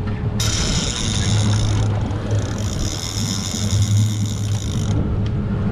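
Saltwater fishing reel being cranked steadily to retrieve a hooked fish: a high mechanical whirring that starts almost at once and stops about five seconds in, over a steady low hum.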